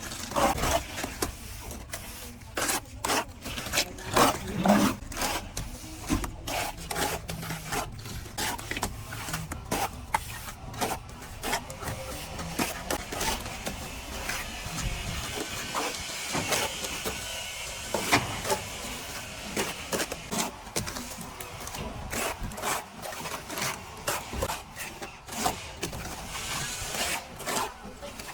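Plastering tools scraping and knocking, irregular scrapes and sharp clicks, with a longer stretch of steady scraping about halfway through.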